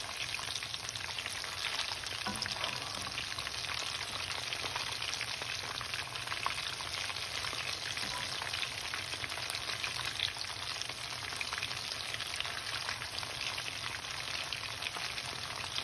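Batter-coated chicken kebabs frying in oil in a nonstick wok over medium heat: a steady crackling sizzle dotted with fine pops.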